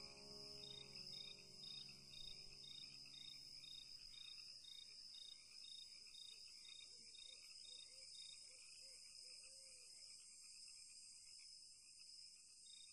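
Faint insect chirping, pulsing about three times a second, that drops out for a few seconds near the end. The tail of background music fades out in the first few seconds.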